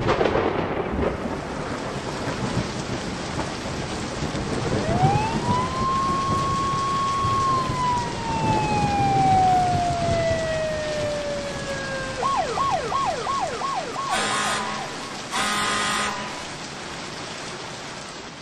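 Sound-effect bed of steady rain and thunderstorm noise. About five seconds in, an emergency siren rises, holds a long wail and slowly falls, then switches to rapid yelps around twelve seconds. Two short, loud blasts follow near the end.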